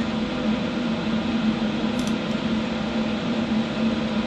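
Small HHO (hydroxy) gas welding unit running with its torch lit: a steady low hum under an even hiss.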